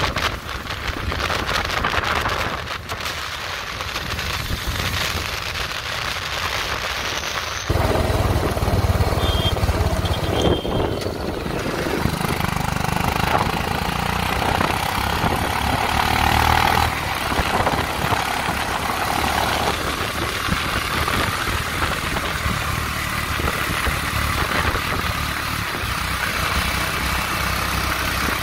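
Motorcycle engines running while riding through city traffic, mixed with road and wind noise on the phone's microphone. About eight seconds in the sound changes abruptly and a deeper engine rumble comes in.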